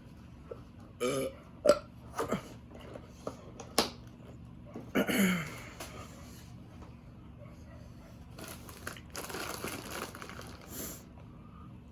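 A person burping: a short burp about a second in and a longer, louder one that drops in pitch about five seconds in, with sharp clicks between them. Near the end comes a few-second stretch of hissy noise.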